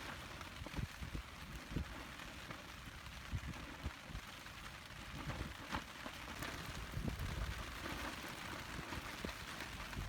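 Steady rain falling, with scattered drops striking a camping tarp overhead.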